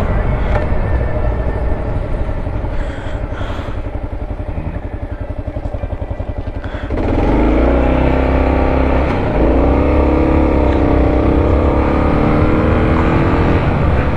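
Motor vehicle engine running with heavy low rumble, then accelerating about halfway through: the engine note rises in pitch and grows louder, then holds.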